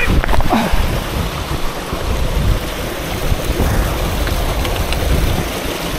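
Mountain stream rushing and splashing over boulders in a steady wash of water noise, with a low rumble of wind buffeting the microphone.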